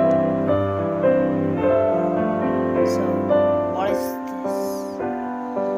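Background music: a slow melody of sustained notes changing about twice a second.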